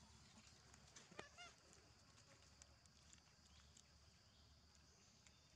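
Near silence: faint outdoor ambience with a steady high-pitched drone, and one short animal call about a second in.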